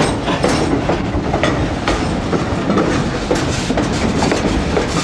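Narrow-gauge passenger train rolling along the track: a steady rumble with irregular clacks of the wheels over rail joints.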